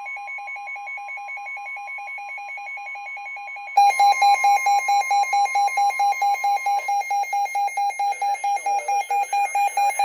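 Emergency weather alert tones: a rapid electronic beeping of about four beeps a second over a steady single alarm tone, the warning alarm that comes before a severe storm warning is read. The beeping gets much louder about four seconds in, and the steady tone stops about seven seconds in.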